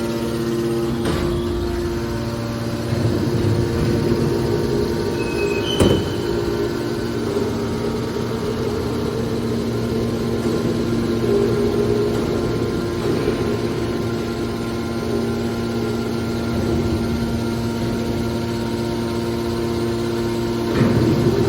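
Hydraulic scrap metal baler running: a steady hum from its motor and hydraulic pump, with a few sharp metallic knocks, the loudest about six seconds in.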